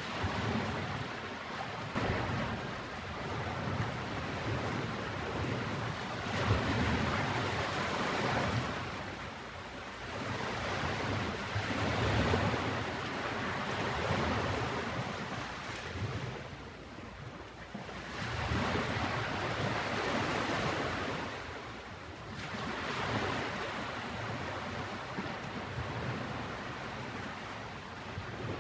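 Ocean surf on a beach: waves breaking and washing up the shore, swelling and fading again about every five seconds.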